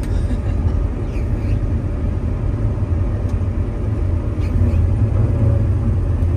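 Combine harvester running while cutting a cereal crop, heard from inside the cab: a steady low drone of engine and threshing machinery, a little louder in the second half.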